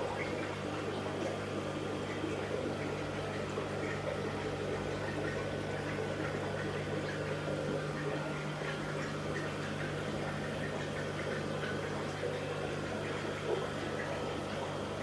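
Steady electric hum of aquarium equipment in a fish room, with the constant bubbling and trickling of water from the tanks' filters.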